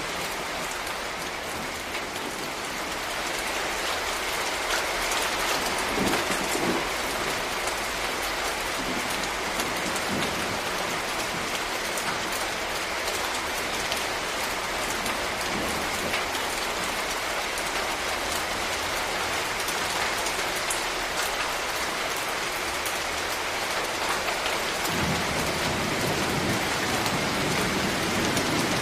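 Steady heavy rain pattering on leaves and surfaces, with a low rumble that comes in near the end.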